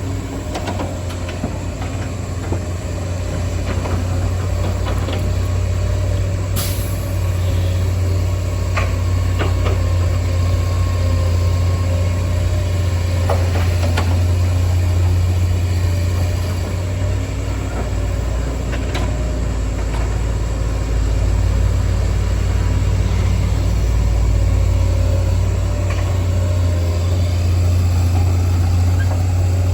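Hydraulic excavator's diesel engine running steadily, with a few sharp knocks and clanks now and then.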